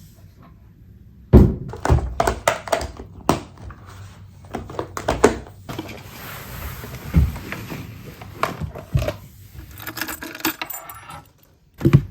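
A run of sharp knocks, clinks and clatters of small hard objects being handled, starting about a second in, with a stretch of soft hiss in the middle and another heavy thump at the very end.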